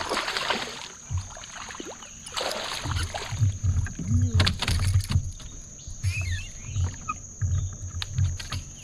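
Water splashing as a freshly caught fish is brought aboard a kayak, followed by irregular low thumps and knocks against the kayak as the fish flops and is handled.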